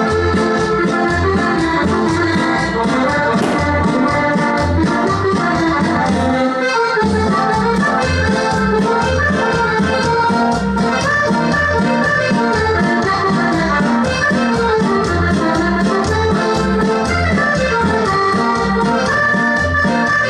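Latin American dance music with a steady bass beat under a melody of held notes on an accordion-like or organ-like instrument; the bass drops out briefly about six and a half seconds in.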